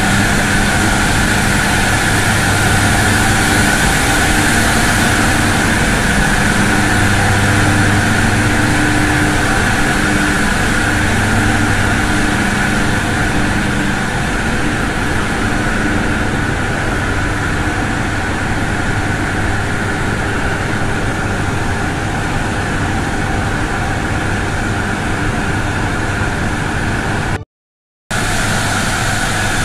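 Loud, steady machinery noise of a pumped-storage hydroelectric plant's running turbine-generator units: a deep hum under an even rushing. The hum fades somewhat about halfway through, and the sound cuts out briefly near the end.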